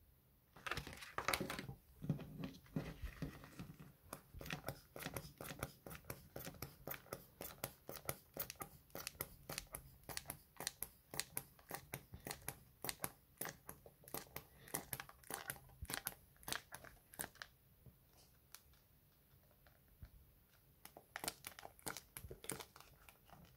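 Rubber inflation bulb of an original Reebok Pump shoe's air bladder being squeezed over and over: a run of sharp puffing clicks, about three a second, with the clear plastic bladder crinkling. It stops for a few seconds near the end, then starts again. Really loud for a shoe pump.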